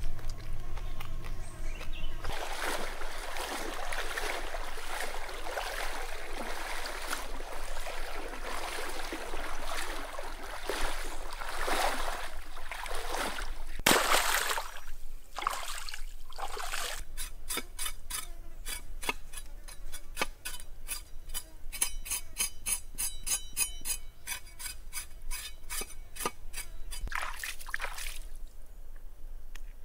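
Stream water splashing and sloshing over a raw pig's head as it is washed, with one loud splash about halfway through. Then a run of quick, evenly spaced rubbing strokes, about three a second, as the skin is worked by hand in the water.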